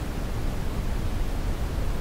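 Gentle synthetic white-noise track: a steady, even hiss with most of its weight in the low end and no rhythm or change.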